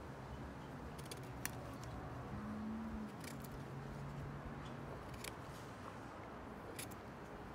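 Pruning shears snipping at a young kukui (candlenut) branch: several sharp, irregularly spaced clicks of the blades biting into and cutting the soft wood.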